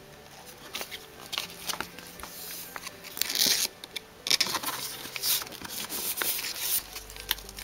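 Clear plastic binder sleeve pages crinkling and rustling as trading cards are slid into their pockets and the pages are handled, with the loudest rustles a few seconds in.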